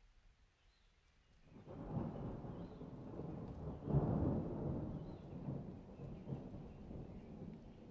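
A roll of thunder: a low rumble that rises about a second and a half in, is loudest near the middle, then slowly dies away.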